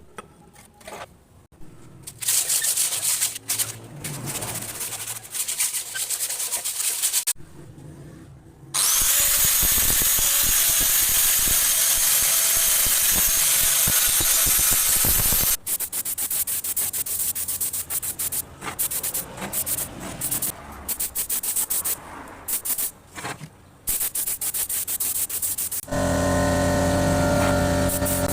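Irregular rubbing, scraping and handling noise from work on a motorcycle seat. In the middle there is a steady loud hiss with a thin high whistle for about six seconds that stops abruptly, and near the end a steady hum of a few seconds.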